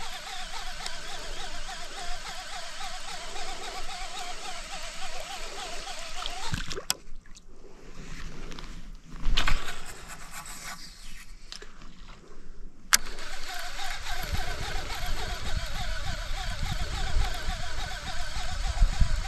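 Outdoor ambience over still water, with a splash on the water about nine and a half seconds in and a low rumble over the last few seconds.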